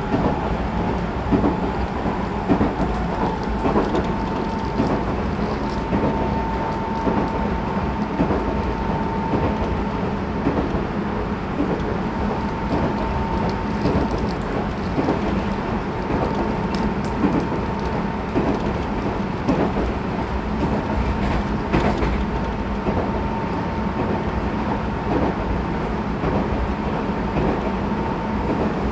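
Running sound inside the motor car of a Tobu 20400 series electric train at speed: a steady rumble of wheels on the rails, with a faint steady tone and scattered sharp clicks as the wheels pass over rail joints.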